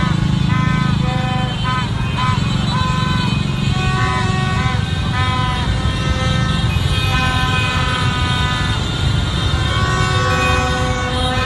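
Many horns tooting over and over at several different pitches, over the low rumble of a dense mass of motorbikes moving slowly.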